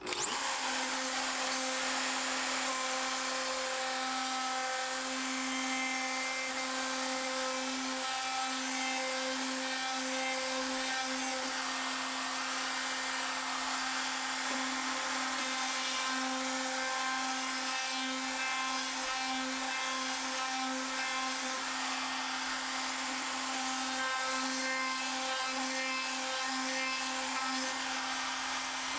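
Hand router with a chamfering bit switching on and spinning up quickly, then running with a steady whine while it chamfers the edges of plywood plates.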